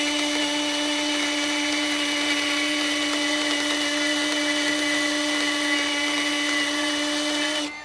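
Cordless drill spinning a ring on a bolt mandrel while a handheld rotary tool's sanding drum is held against the ring to sand it: a steady motor whine with a hiss of sanding, cutting off shortly before the end.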